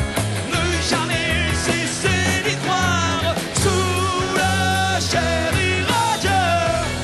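Rock band music: electric guitars, bass and drums playing under a wavering lead melody.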